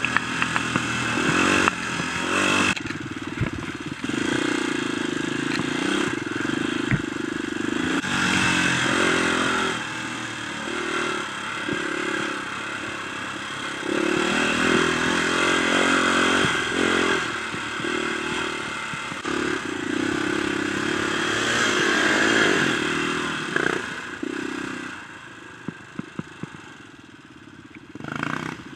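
Dirt bike engine heard from on the bike, revving up and down with the throttle on a rough dirt trail, with clatter and knocks from the bike over bumps. Near the end the engine drops to a quieter run, with a few sharp knocks.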